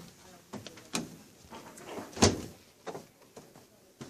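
Washing machine doors or lids being handled and shut: a few separate clunks, the loudest a little over two seconds in.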